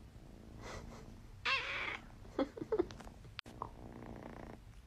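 A house cat gives a wavering meow about one and a half seconds in, followed by a few shorter, lower chirps.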